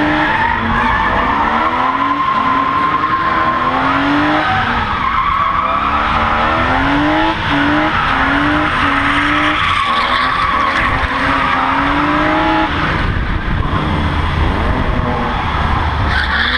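BMW M52B28 2.8-litre straight-six of a compact drift car, revving up and falling back again and again as the car slides, over tyres squealing and scrubbing on the tarmac. The revving stops about thirteen seconds in, leaving a low rumble.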